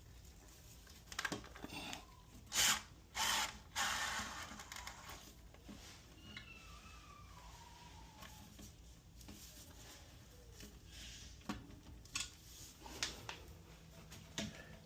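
Handwork on a toilet seat's fittings: a few short, loud scrapes in the first seconds, then scattered sharp clicks of hard plastic and metal parts.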